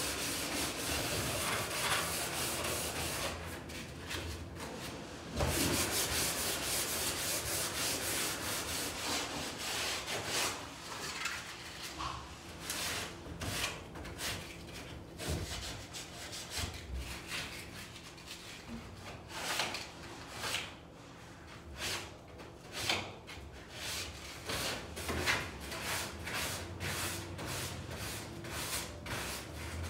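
Hand sanding of a wall: steady rubbing at first, then separate back-and-forth strokes, about one or two a second, through the second half.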